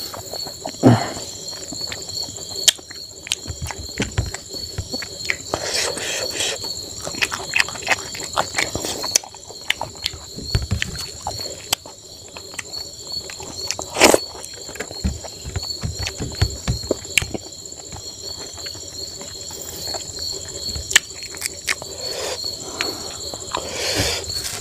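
Close-up eating sounds of a person eating rice by hand: wet chewing, lip-smacking and mouth clicks, with fingers working the rice on a steel plate. Behind them, a steady high trilling of crickets runs throughout.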